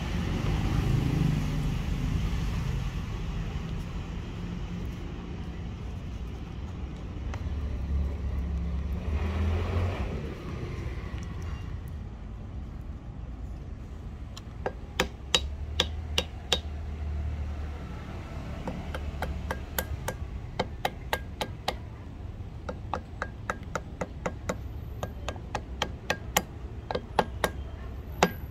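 Low rumble of a passing motor vehicle, then from about halfway a long run of light, sharp clicks and taps, several a second, coming in clusters.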